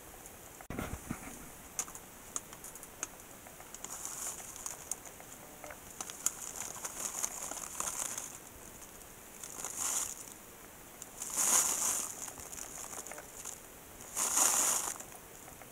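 Plastic bag of shredded cheese crinkling in irregular bursts as it is shaken over the pan, the loudest near the end; a soft thump about a second in.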